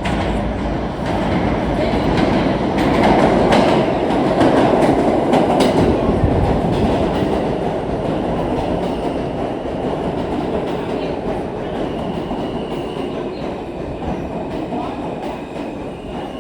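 R160 New York City subway train running through the station, its wheels clattering over rail joints. It is loudest a few seconds in and then slowly eases off, with a faint high whine near the end.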